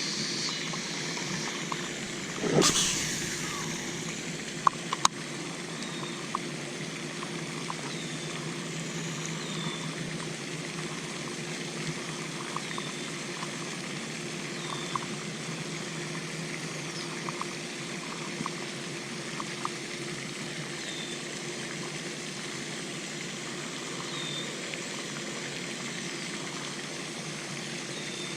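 Steady trickle of storm runoff water running through a pond drain. About two and a half seconds in there is a brief whoosh, followed by two sharp clicks, with faint small ticks and high chirps scattered through.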